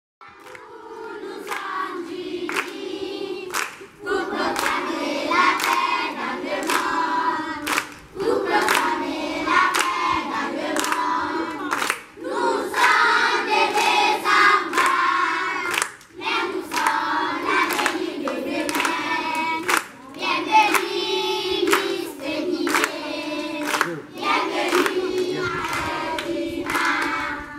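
A group of children singing together with hand claps keeping a steady beat; the song goes in phrases that break about every four seconds.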